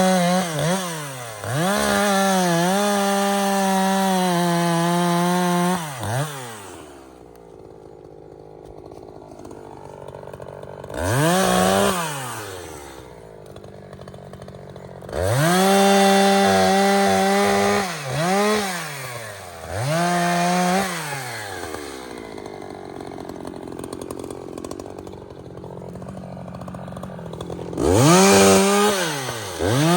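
Echo CS-620P two-stroke chainsaw cutting pine. It revs up to full throttle for each cut, holds a steady high pitch through the wood, then drops back to idle between cuts, about five times over.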